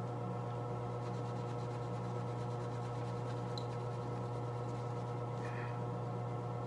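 Steady machine hum with several faint steady higher tones above it, unchanging throughout, and no work sounds.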